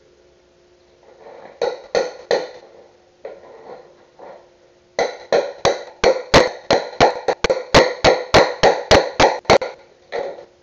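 Hammer striking a chisel into a wooden plank, each blow ringing: three blows about two seconds in, then a quick run of about sixteen blows at roughly three a second from about five seconds in until near the end.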